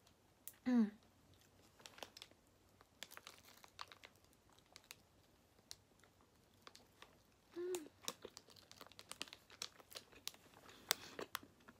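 Plastic food wrapper crinkling and crackling in the hands while a wrapped pizza is bitten and chewed, with scattered small clicks throughout. Two brief hummed vocal sounds from the eater, about a second in and again near eight seconds.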